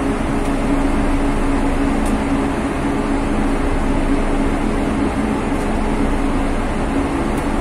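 Steady drone of a ship's machinery, an even rumble with a constant low hum.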